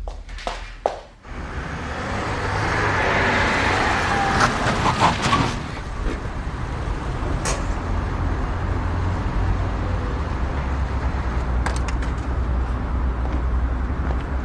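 A motor vehicle running: a steady low engine rumble with road hiss that swells about two seconds in and eases off after about six seconds, with a few faint clicks.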